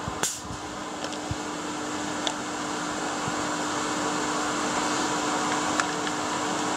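A steady fan-like hum and hiss with one constant low tone, and a few faint clicks as the compression tester's hose is pulled from a spark plug well.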